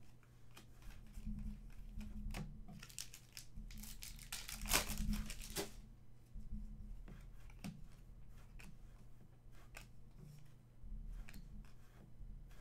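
Stiff trading cards being shuffled and slid against one another in the hands, a papery rustle with a louder run from about three to six seconds in, and scattered light clicks of card edges.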